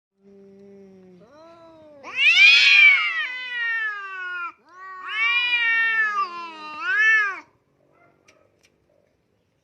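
A domestic cat meowing. A faint low moan comes first, then three drawn-out meows that rise and fall in pitch: the first, about two seconds in, is the longest and loudest, and the last is short.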